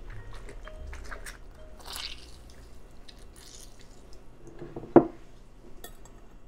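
A lemon half twisted and pressed on a glass reamer juicer: soft, irregular wet squishing and dripping of juice. About five seconds in, a single sharp clink.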